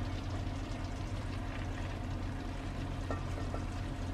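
Chicken pieces in a red cast-iron pot, still sizzling faintly over a steady low hum as they are lifted out with a utensil. There is a light clink about three seconds in.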